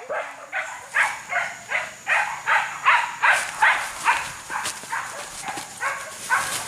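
Hunting dog giving tongue on the chase of a wild boar: a steady run of short, high yelping barks, about three a second.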